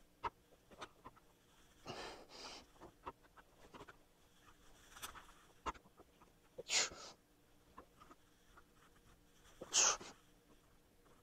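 A lifter's hard, sharp exhales while straining through a set of dumbbell presses taken to failure: two light breaths about two seconds in, then two strong blasts about three seconds apart, over faint scattered clicks.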